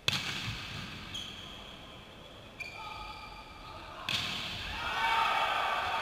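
Volleyball struck hard to open a rally, a sharp smack. It is followed by more ball contacts about a second and a half apart, and then players' voices grow louder near the end.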